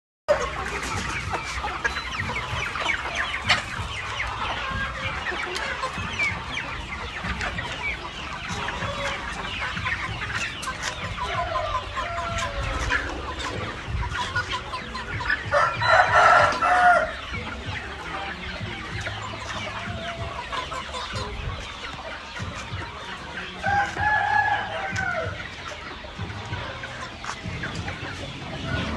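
A flock of chickens clucking and calling continuously, many birds at once, with one louder drawn-out call a little over halfway through and a few more calls standing out near the end.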